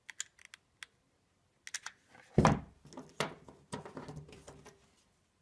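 Workbench handling noise while hot-gluing a wing nut onto a bolt: a few light clicks, then two louder knocks close together near the middle, followed by soft rustling.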